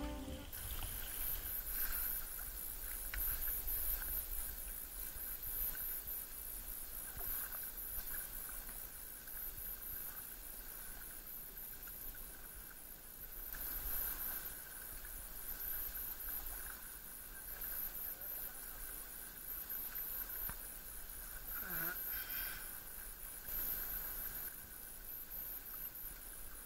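Sea kayak being paddled on calm water: a soft hiss of water from the paddle strokes that swells every second or two, over a low wind rumble.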